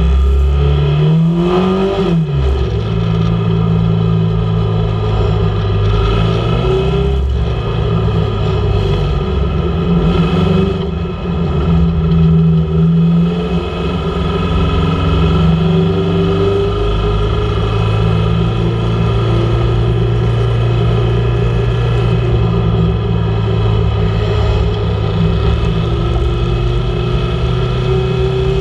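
Mini Stock dirt-track race car's four-cylinder engine running hard at speed, heard from inside the cockpit. The revs climb and then drop sharply about two seconds in, and the engine eases off briefly around eleven seconds as the car lifts for a turn.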